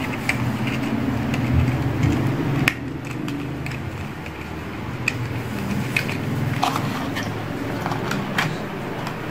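Scattered small clicks and crinkles of plastic packaging and phone accessories being handled, over a steady low hum that drops a little about two and a half seconds in.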